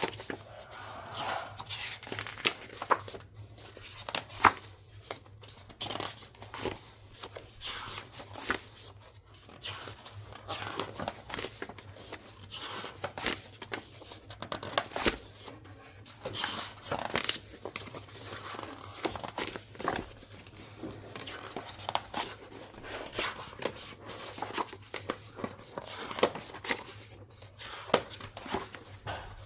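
Packaging being handled and opened: irregular crinkling, rustling and tearing with sharp little clicks throughout, as a vinyl record is unwrapped. A faint steady low hum sits underneath.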